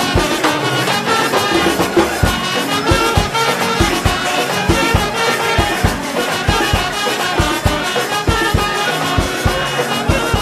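Wedding brass band (band party) music: brass melody over a steady, regular drum beat.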